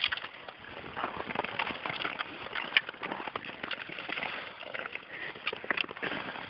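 Long-distance tour skates scraping and gliding on natural lake ice, one rasping stroke after another at an uneven rhythm, with a few sharp clicks.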